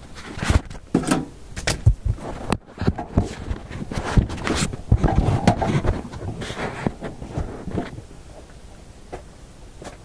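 Camera handling noise as the camera is picked up and repositioned: a run of irregular knocks, clunks and rustles close to the microphone, settling to quiet from about eight seconds in.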